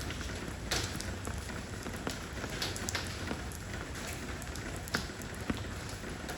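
Steady rain falling on stone paving, a constant hiss with individual heavier drops striking here and there.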